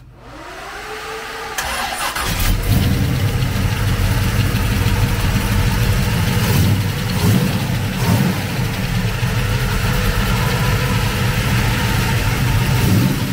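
Pontiac GTO V8 being started: the starter whirs up for about two seconds, the engine catches and settles into a steady idle, with a few brief blips of the throttle.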